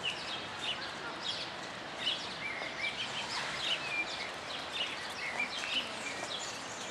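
Small birds chirping, with quick short notes several times a second, over steady outdoor background noise.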